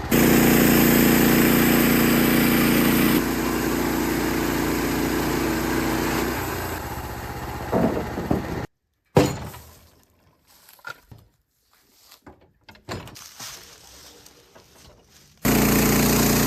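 Norwood LM30 portable sawmill's engine running steadily, with a slight drop in level about 3 s in and again near 7 s. It cuts off sharply at about 8.7 s. A quiet stretch of scattered knocks and clatter follows, the loudest about 9 s in. The mill's engine comes back suddenly near the end.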